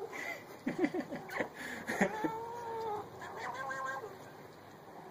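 A grey cat meowing repeatedly while it is scratched on its head and back. A few short calls come about a second in, then a long drawn-out meow a couple of seconds in, and another shortly after.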